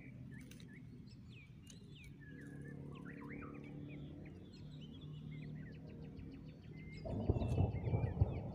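Small birds chirping and calling over a faint steady low hum. About seven seconds in, a loud, fluttering low rumble comes in and lasts to the end.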